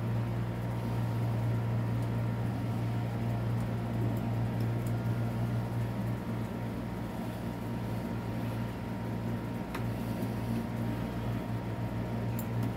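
Steady low hum of a fan or similar running machine, with a few faint light clicks near the end.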